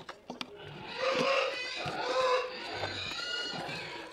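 Pigs making a racket: a run of repeated squealing calls, about one a second, with a few sharp clicks near the start.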